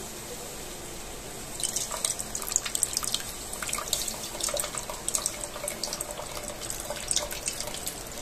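Tamarind juice poured in a thin stream into a pot of spiced water, trickling and splashing irregularly from about one and a half seconds in.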